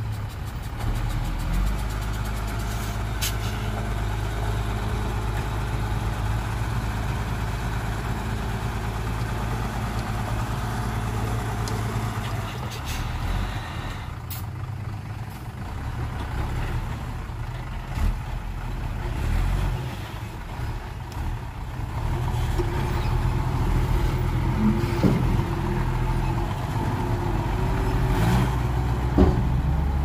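Diesel engine of a Hyundai 5-ton dump truck running steadily while its bed is raised to tip a load of soil, with a few short knocks.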